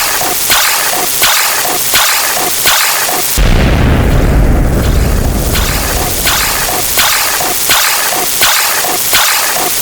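Sound effects: a sharp sound repeating about every 0.7 s, broken a little over three seconds in by a deep boom lasting about two seconds, after which the repeating sound resumes.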